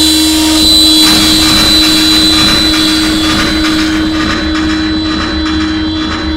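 Live electronic noise: a loud, dense wash of roaring noise over a steady low hum and a thin high steady tone, thickening about a second in and slowly easing off.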